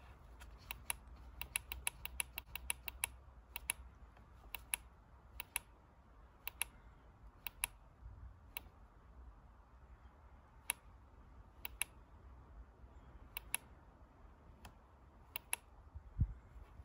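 Plastic push button on a BMW G310 GS instrument cluster clicking as a gloved finger presses it repeatedly, stepping through the setup menu: a quick run of clicks in the first few seconds, then clicks every second or so, often in close pairs. A low thump near the end.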